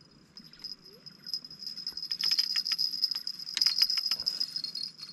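Insect song outdoors: a high, steady buzz with a rapid crackle of clicks that swells about a second in, is loudest near four seconds, then fades.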